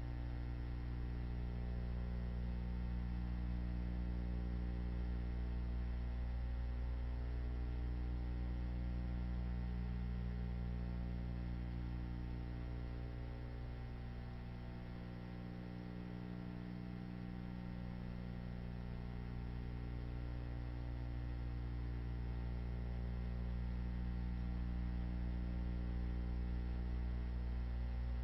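Steady electrical mains hum, a low even drone with a stack of fixed tones above it and no other sound.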